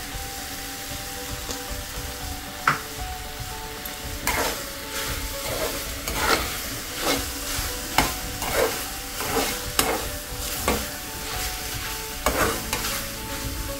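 Steel slotted spoon stirring mixed vegetables in a kadai over a gas flame, the vegetables sizzling softly as they cook down in oil. From about four seconds in, the spoon scrapes against the pan in regular strokes, about one every three-quarters of a second.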